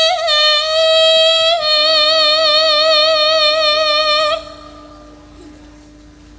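A female Javanese singer (sinden) holds one long, high sung note with a wavering vibrato on the end of a slow, lullaby-like song line. The note stops about four and a half seconds in, leaving only a faint steady low tone beneath.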